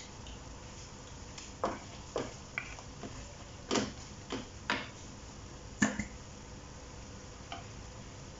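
Wooden spatula knocking and scraping against a metal wok while shrimp in thick sauce are stirred: about eight irregular knocks, the loudest about six seconds in.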